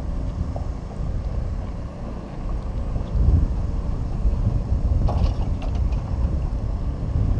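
Wind buffeting the microphone on an open boat: a low rumble that rises and falls in gusts.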